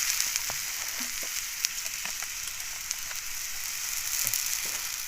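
Foraged mushrooms frying in hot oil: a steady sizzle with scattered pops and crackles.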